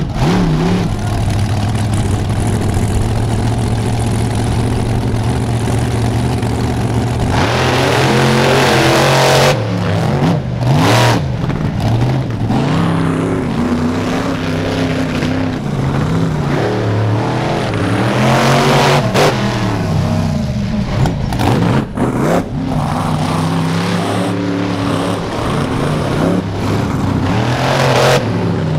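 Monster truck engines running hard on a dirt track. They hold a steady drone for the first several seconds, then rev up and down again and again as the trucks accelerate and jump.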